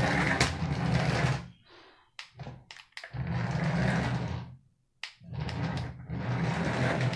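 Toy remote-control car's small electric drive motor and plastic gears whirring in three short bursts as it is driven in stop-start runs, with a few light clicks in the pauses between.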